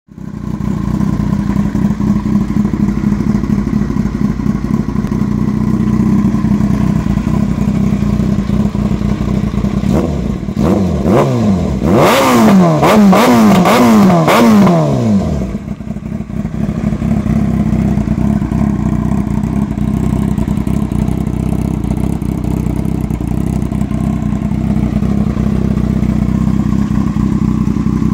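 Yamaha YZF-R6S 600 cc inline-four sport bike idling through an RLS stainless shorty slip-on exhaust. About ten seconds in, the throttle is blipped in a quick run of sharp revs, each rising and falling in pitch over some five seconds, then it settles back to a steady idle.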